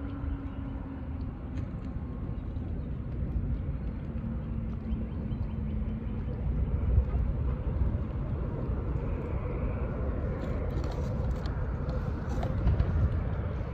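Wind rumbling and buffeting on the microphone, with a faint steady hum in the first few seconds and a few faint ticks in the second half.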